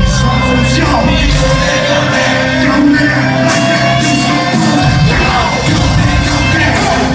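Loud live rock concert music with a sung and shouted lead vocal over heavy bass and drums.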